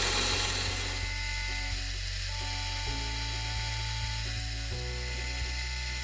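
A milling machine runs at high spindle speed, its single-flute cutter milling a V-groove in brass with a steady high-pitched whine and cutting hiss. Background music with slow, held chords that change every couple of seconds plays underneath.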